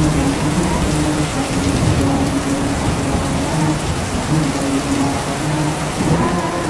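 Steady heavy rain, with a low male voice softly chanting shalawat beneath it in long, drawn-out phrases.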